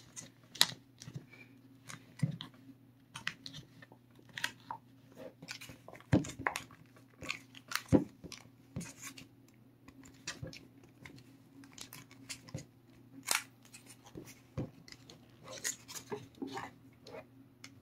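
Thin plastic deli container crackling and clicking irregularly as it is squeezed and flexed by hand to loosen the cured mold inside for demolding.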